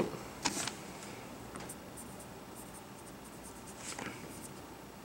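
Marker pen drawing on a rewritable mat surface: a few faint, short scratchy strokes.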